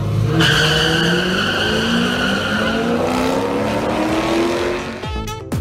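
Two drag-racing cars launching off the line, tyres squealing at first and engine pitch climbing steadily as they accelerate down the strip. Electronic music comes in near the end.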